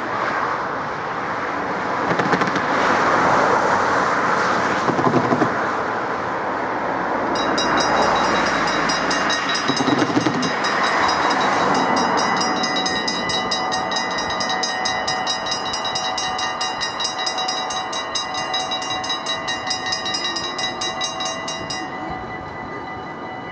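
Rushing road-traffic noise, then a Dutch level-crossing warning bell starts about a third of the way in, ringing rapidly and steadily as the lights flash and the half-barriers lower. The ringing drops to a softer tone near the end, once the barriers are down.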